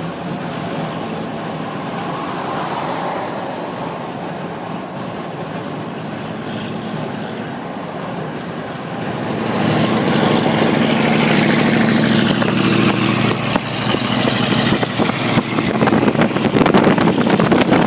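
Heavy dump trucks' diesel engines running, growing clearly louder about halfway through, with wind buffeting the microphone near the end.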